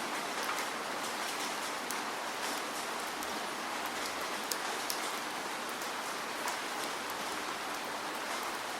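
Steady rain falling, a constant hiss with individual drops ticking on a surface throughout.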